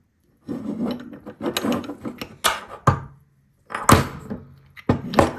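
Metal parts of a handmade watchmaker's staking tool being handled and taken apart: rattling and scraping, then a few sharp metallic knocks.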